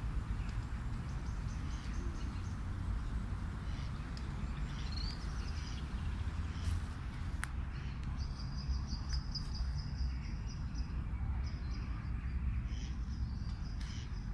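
Small songbirds chirping and trilling in high, thin bursts over a steady low rumble, with a single sharp click about seven seconds in.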